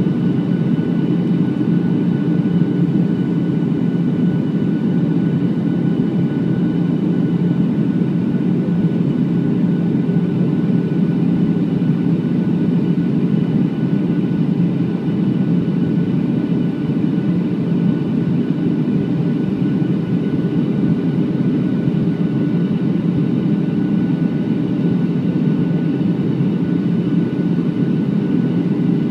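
Steady in-flight cabin drone of a Boeing 737 airliner heard from a window seat over the wing: a deep, even rush of engine and airflow noise with a faint steady whine on top.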